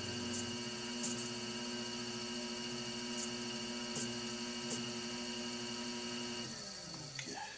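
Electric potter's wheel motor running with a steady whine, then slowing to a stop with falling pitch about six and a half seconds in. A few light taps of hands on the upside-down leather-hard clay bowl as it is centred on the spinning wheel head.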